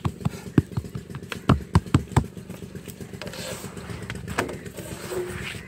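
Hands slapping and patting roti dough flat on a flour-dusted board, a quick run of dull slaps about three to four a second, stopping about two seconds in. After that comes softer scraping with a single knock.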